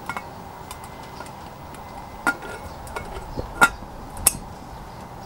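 A few sharp metallic clinks as the wire bail handle and lid clip of a stainless steel Zebra billy can are knocked against the pot, the loudest about three and a half seconds in, over a steady hiss.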